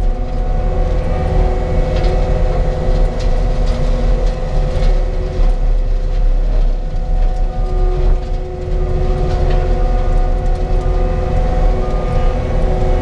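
Cat compact loader running at high throttle, driving a BRX418 industrial brushcutter whose blade and heavy flywheel spin as it cuts through brush: a steady whine of several tones over a low rumble, with scattered snaps of brush being cut.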